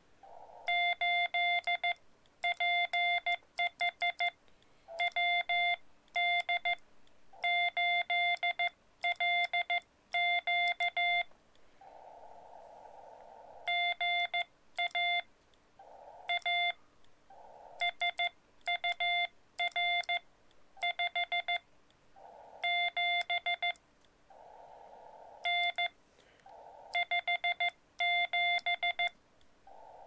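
Morse code (CW) from a Xiegu X-6100 transceiver keyed with a paddle: steady-pitched beeps in groups of dots and dashes. Between groups come short rushes of narrow-filtered receiver hiss, the longest about twelve seconds in and again near twenty-five seconds.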